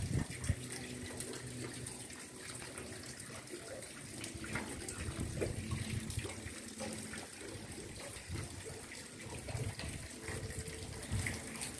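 Steady rain falling on leaves and ground, an even hiss with many small patters, with intermittent low rumbles.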